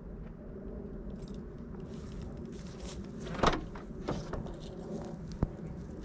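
A car boot being unlatched and opened by hand, with a few short clicks and knocks: the loudest about three and a half seconds in and a sharp click near the end, over a steady low outdoor background.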